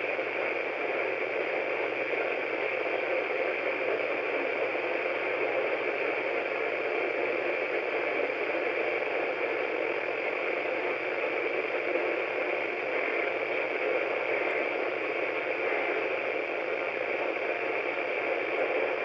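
Steady hiss and static from a radio receiver tuned to a weak, barely readable signal, with a faint low hum beneath it.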